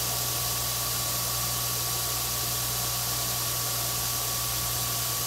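Mean Green S1 knife-making belt grinder running at speed after being switched on: a steady motor hum under the even hiss of the abrasive belt, with a faint steady whine.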